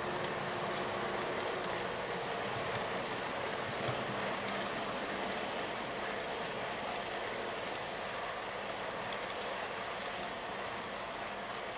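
Model train running on its track, hauling a rake of silver bullet china clay wagons: a steady rumble of motor and wheels that eases off slightly towards the end.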